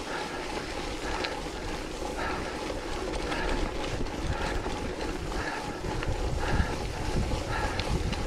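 Wind buffeting the microphone of a camera riding on a bike during an off-road race, over the steady noise of the bike rolling on wet, muddy trail. A softer sound repeats about once a second.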